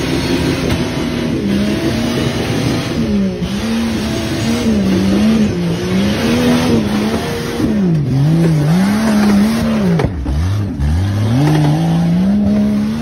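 Tube-frame off-road buggy's engine revving hard, its pitch rising and falling with the throttle as the tires spin on loose dirt. About ten seconds in the revs drop sharply, then climb again.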